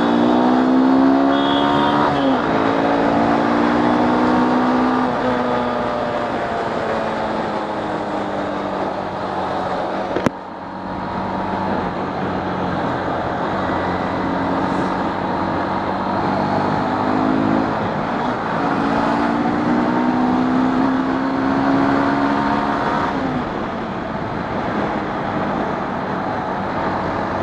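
Honda X-Blade's single-cylinder engine pulling under acceleration, its pitch rising and then dropping sharply at each gear change, with wind and road noise on the rider's microphone.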